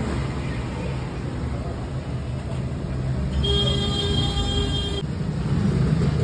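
Steady low rumble of running machinery, with a held horn-like tone for about a second and a half past the middle.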